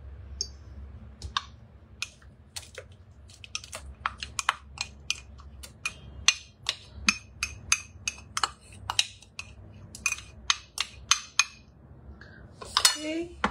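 Wooden spoon scraping and knocking tomato puree out of a ceramic mug into a Thermomix's steel mixing bowl: a run of sharp clicks and knocks, two or three a second, then a brief clinking near the end.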